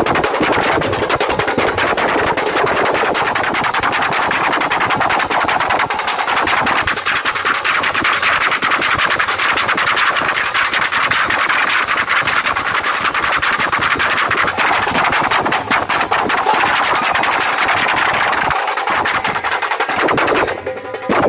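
Wedding drum troupe playing fast, dense rhythms on stick-beaten snare and bass drums.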